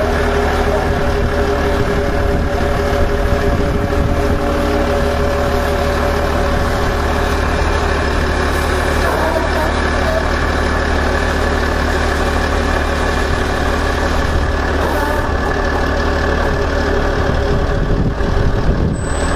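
An engine running steadily with a low, even drone, with voices faint underneath.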